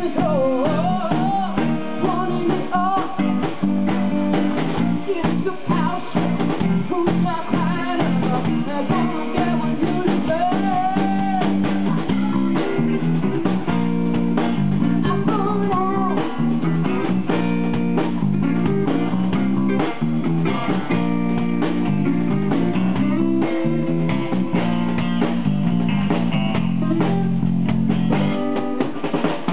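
Live band playing: electric guitars over bass guitar and drum kit, with guitar lines bending in pitch.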